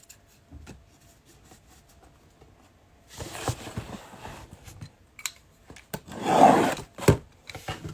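Trading card packaging being handled and opened: cardboard and wrapper rubbing and scraping in a few short bursts, the loudest about six seconds in, with a sharp click just after.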